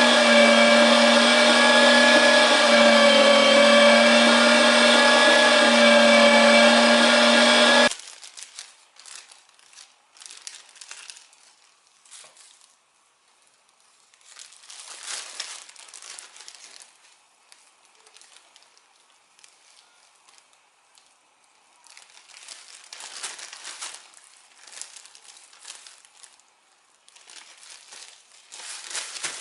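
Kitchener #12 electric meat grinder running with a steady hum, switched off abruptly about eight seconds in. After that, quieter intermittent crinkling and rustling of plastic bags.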